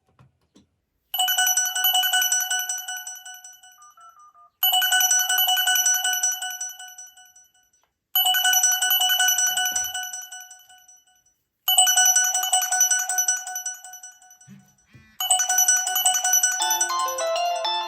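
Mobile phone incoming-call ringtone: a bright chiming ring that sounds five times, about every three and a half seconds, each ring fading away. Near the end a second, melodic ringtone starts playing over it.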